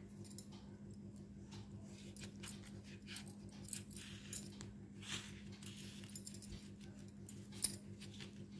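Faint rustling and crackling of dry corn husks being handled while a husk bundle is tied with thread, over a steady low hum; one sharper tick near the end.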